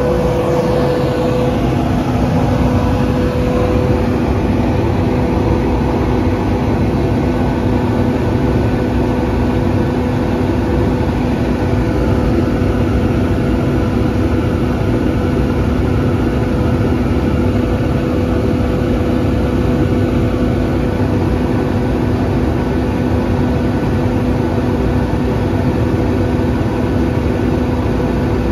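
Airpol 37 rotary screw air compressor running steadily, an even loud hum with a constant low tone, while the line pressure holds at about 5.8 to 5.9 bar.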